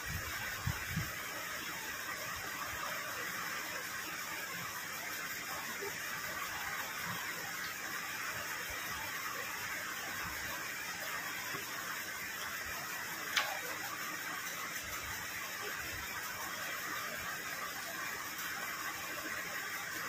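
Steady background hiss of room noise, with a few soft knocks right at the start and one sharp click about two-thirds of the way through, from people eating at a table.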